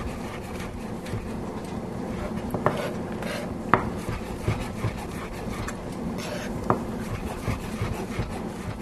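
Chef's knife slicing mushrooms, the blade tapping the cutting board in a few irregular, sharp taps with soft cutting sounds between.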